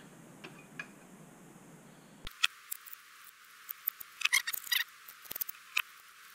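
Light clicks and taps of small metal hardware being handled: screws, nuts and a steel mounting bracket knocked together and worked with a screwdriver. The first two seconds are nearly quiet, then a quick run of sharp clicks follows.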